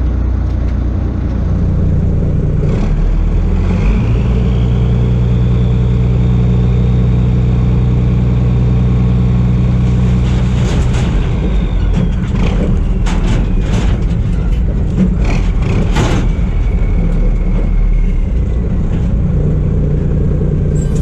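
Heavy machine's diesel engine running steadily. Its pitch rises about four seconds in and settles back around ten seconds, and several sharp metallic knocks come between about twelve and sixteen seconds.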